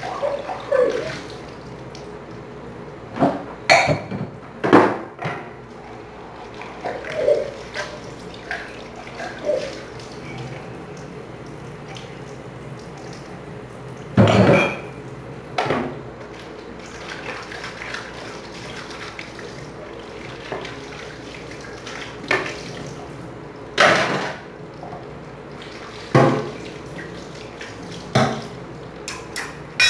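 Dishes being washed by hand at a kitchen sink: plates and utensils clatter against each other and the sink every few seconds, over a steady sound of running water.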